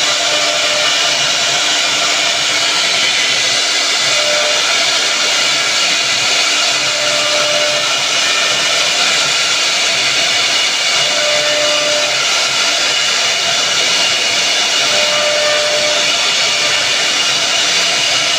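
CNC router spindle running and its bit cutting wood: a loud, steady whine and hiss, with a brief hum rising out of it every few seconds.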